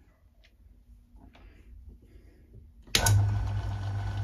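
Myford ML7 lathe switched on about three seconds in: the motor starts suddenly and runs with a steady low hum as the four-jaw chuck spins up. Before that, only a few faint clicks.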